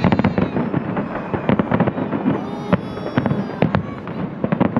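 A festive fireworks salute going off: a dense, rapid series of sharp bangs and crackles that begins abruptly.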